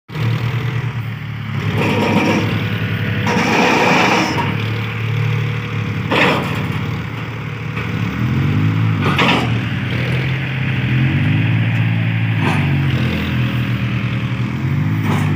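John Deere tractor's diesel engine running hard under load, its pitch rising and falling as it revs, while working in deep mud. Sharp knocks come about every three seconds.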